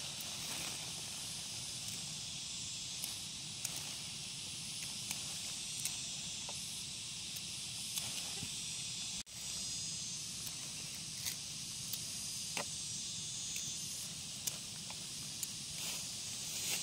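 Dry peanut plants crackling and rustling in the hands as pods are plucked off the roots, scattered short snaps over a steady high hiss.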